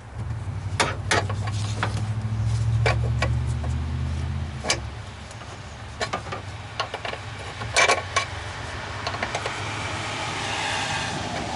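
Metal hand tools clicking and clinking against battery hardware as bolts are worked loose, with a low steady motor hum for the first four and a half seconds that then stops.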